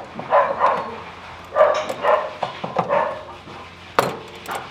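A dog barking repeatedly in short bursts, followed by two sharp clicks about four seconds in.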